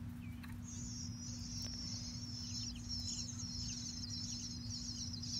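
Bluebird nestlings begging inside a wooden nest box as a parent arrives at the entrance with food: a dense, high-pitched chatter of many overlapping calls that starts under a second in. A steady low hum runs underneath.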